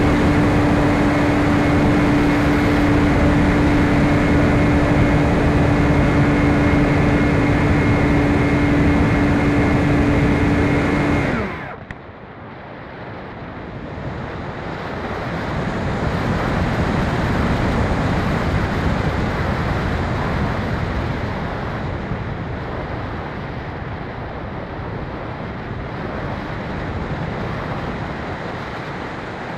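Onboard sound of a Phoenix 2400 RC motor glider: the electric motor and propeller run at a steady pitch, then cut off suddenly about eleven seconds in. After that only the wind rushes over the airframe as it glides, swelling and then easing off.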